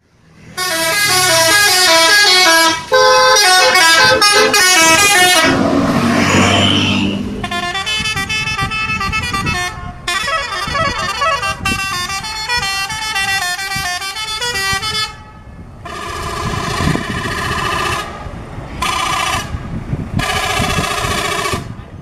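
Indonesian tour-bus telolet horns, a bank of tuned horns playing quick stepping melodies of many short notes. A short noisy stretch interrupts the melodies early on. Near the end the horns switch to three held chords, one blast after another.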